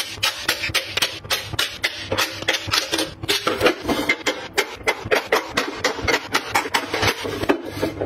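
Plastic lip gloss tubes clicking and clacking as they are set down one after another in a clear acrylic drawer organizer, with the acrylic drawers sliding and knocking. Quick clicks, several a second.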